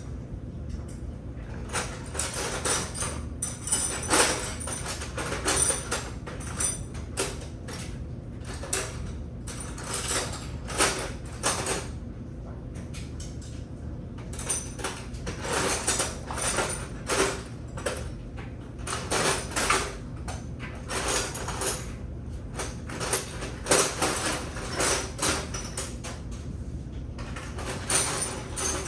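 Metal hand tools clinking and clattering in irregular clusters as someone handles and sorts through them, over a steady low hum.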